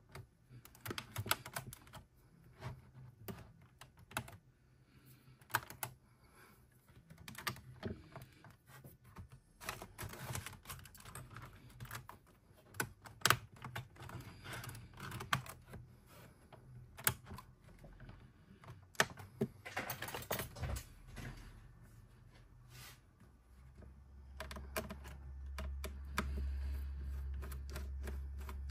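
Keys of a Lenovo ThinkPad T560 laptop keyboard being pressed, in irregular clicks and quick clusters of taps. A low steady hum comes in near the end.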